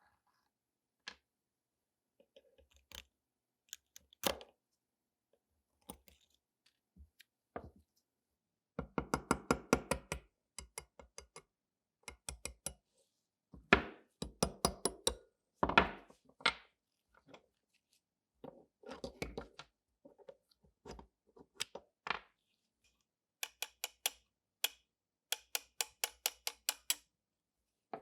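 Hand tools working on small metal pistol parts: scattered sharp knocks and taps, with a few quick runs of rapid tapping.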